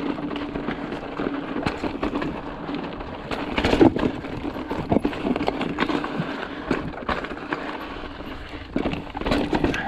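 Hardtail mountain bike riding over slick rock and grit: continuous tyre noise with frequent knocks and rattles from the bike over bumps, the biggest about four seconds in.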